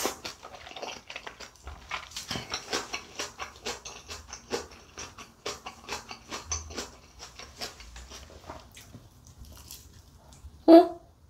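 Close-miked chewing of a mouthful of ramen noodles: a steady run of soft, wet mouth clicks. Near the end comes a louder bite into a thick kimchi gimbap roll, with a short voiced sound.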